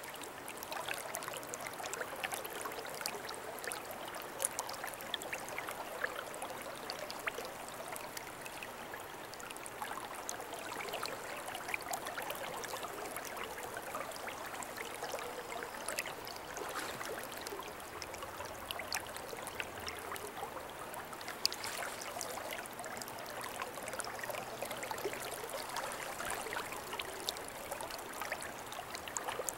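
River water running over a shallow riffle: a steady rush with many small splashes and ticks.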